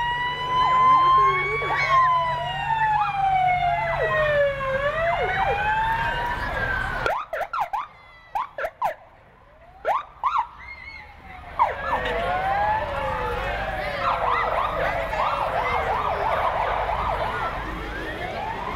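Several emergency-vehicle sirens sounding together in a slow rising-and-falling wail. About seven seconds in they drop away to a few short siren chirps, then about twelve seconds in many sirens return overlapping, some in a fast warbling yelp.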